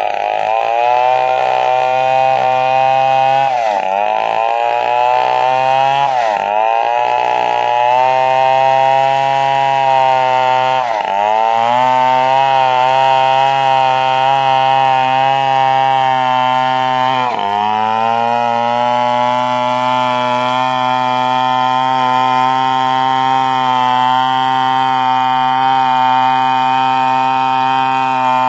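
Stihl 070 two-stroke chainsaw running at full throttle, sawing acacia timber. Its pitch dips briefly four times and recovers each time, as the engine bogs under the load of the cut.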